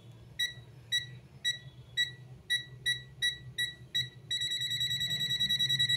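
ZOYI ZT-S1 multimeter's non-contact voltage (NCV) beeper sounding short high-pitched beeps, about two a second at first and gradually quickening. About four seconds in they run together into rapid, near-continuous beeping as the meter picks up a live mains voltage.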